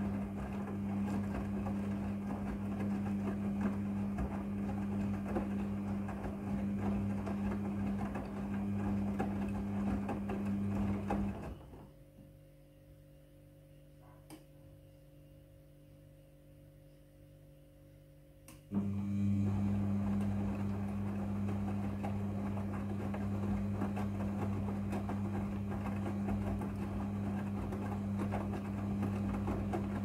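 Midea front-loading washing machine in its wash cycle: the motor hums steadily as the drum tumbles the wet laundry. About eleven seconds in the drum stops and it goes quiet for about seven seconds, with a faint click, then the motor starts again abruptly and the tumbling resumes.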